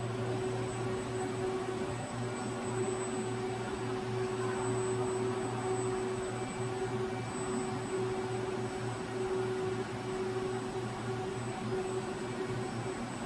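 Steady machinery hum of a robot-tended CNC machining cell running, with a constant low drone and a thin high whine over a noisy hiss.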